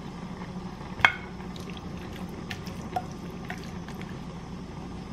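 Liquid sounds in a kitchen, with a few light clinks, the sharpest about a second in, over a steady low hum.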